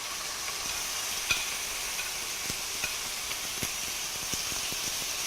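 Chicken breast fillets frying in hot oil in a pan: a steady sizzle with scattered sharp pops and clicks.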